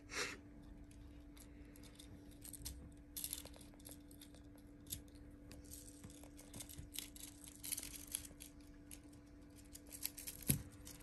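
Sheer organza fabric rustling and crinkling in light, scattered bursts as a cat rolls and paws in it, with a soft knock about ten seconds in. A faint steady hum sits underneath.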